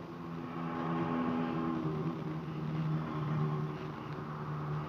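An engine droning, a steady pitched hum whose tones shift about two seconds in.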